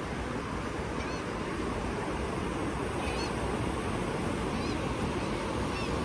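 Ocean surf breaking and washing up the sand, a steady rushing, with faint short high bird calls a few times over it.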